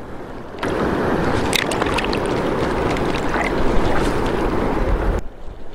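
Water sloshing and churning close to the microphone as someone wades through the shallows. The noise starts abruptly about half a second in and stops suddenly near the end.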